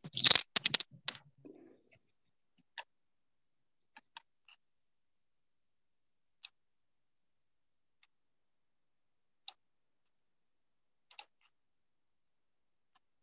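Computer mouse clicking: a quick run of clicks at the start, then single sharp clicks every second or two.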